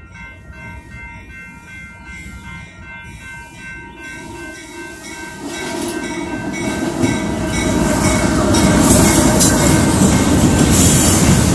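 Grade-crossing warning bells ringing in a steady pulse as a diesel freight train approaches; about five seconds in, the locomotive reaches the crossing and the sound grows into the loud rumble and clatter of the engine and its hopper cars rolling past.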